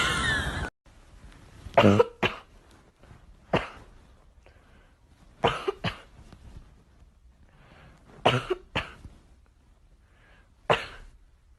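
Short coughs repeated every two to three seconds, mostly in pairs, about eight in all.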